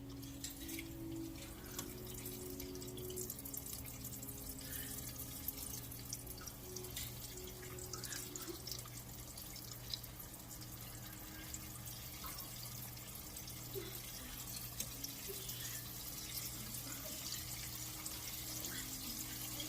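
Hot vegetable oil frying with faint, scattered crackles and pops over a steady low hum.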